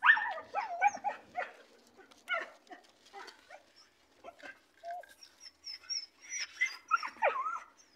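Dog whining and yelping close up in short cries of wavering pitch, the loudest right at the start, with another run of cries near the end.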